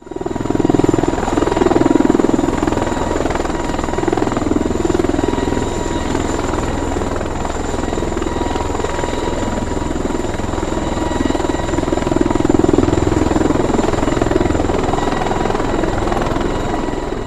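Bell V-280 Valor tiltrotor's proprotors and turboshaft engines running steadily on a ground run: a heavy rotor rumble with a high, steady turbine whine over it, swelling slightly in loudness a couple of times.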